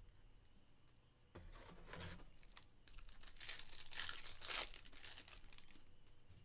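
Foil wrapper of a 2022 Topps Stadium Club Chrome baseball card pack being torn open and crinkled by hand. A run of tearing and crinkling starts about a second and a half in and is loudest past the middle.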